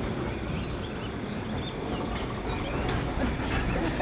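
Outdoor ambience of an insect chirping in a steady pulse, about four chirps a second, over a low rumble, with a few faint higher chirps and a single sharp click about three seconds in.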